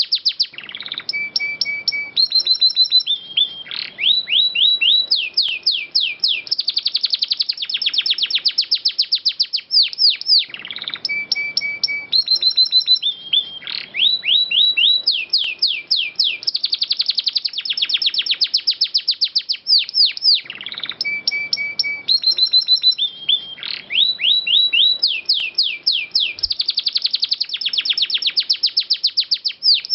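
Domestic canary singing: long rolls of rapid, repeated falling notes mixed with short held whistles. The same song phrase repeats about every ten seconds.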